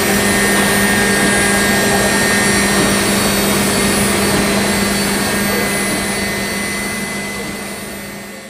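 Matsuura MAM72-42V 5-axis machining centre running while it cuts a W16 engine block: a steady rushing noise with a constant hum and a high whine held under it. It fades out over the last couple of seconds.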